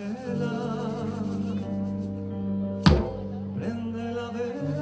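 Music for a Colombian mapalé dance, with held tones and a voice singing over them, and one sharp percussive hit about three seconds in.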